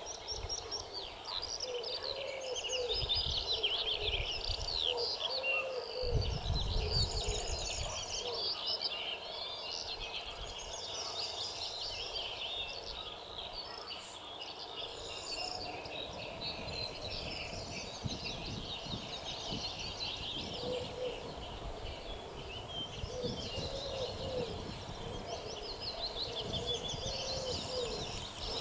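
Dense spring chorus of many songbirds chirping and trilling together, with a lower call repeated in short phrases near the start and again in the second half. A brief low rumble of wind on the microphone comes about six seconds in.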